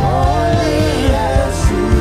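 Gospel worship music: a sung or held melody over sustained keyboard chords and a steady low beat.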